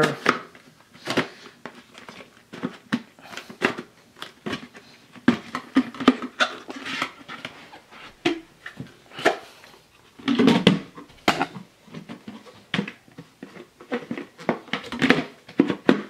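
Hard plastic clicks, knocks and rubbing as the Hoover Rewind's bagless dust cup and filter are handled and fitted back together, a scatter of short clacks with denser handling about a third of the way in and again past the middle.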